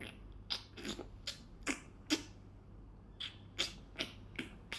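Soft, short clicks and taps coming unevenly, about two a second, over a quiet room.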